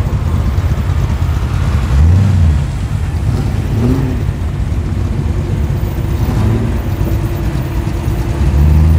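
Holden Commodore SS's V8 idling as the car rolls slowly, with short throttle blips about two and four seconds in. Near the end a louder, deeper engine rumble takes over from a supercharged HQ Monaro arriving.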